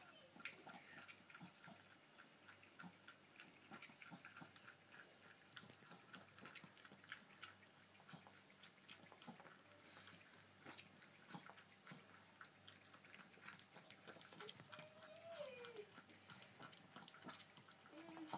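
Miniature pinscher licking and lapping ice cream, faint quick wet clicks coming one after another.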